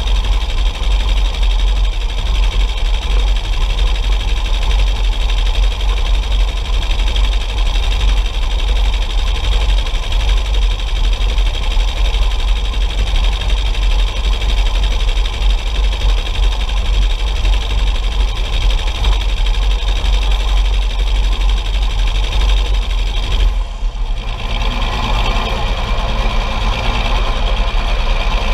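John Deere 6920 tractor's six-cylinder diesel engine running steadily during ploughing, a heavy low drone heard close up. About 23 seconds in it dips briefly, then runs on with a changed tone.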